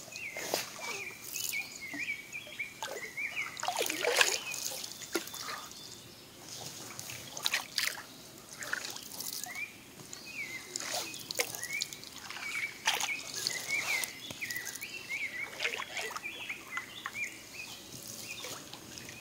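Canoe paddle strokes dipping into calm lake water, with water trickling and dripping off the paddle at irregular intervals. A small bird chirps in quick repeated notes behind it.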